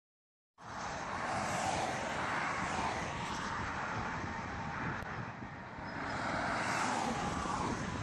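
Highway traffic on a bridge roadway: a truck passing with a steady rush of tyre and engine noise. It starts abruptly about half a second in and swells twice, once early and again near the end.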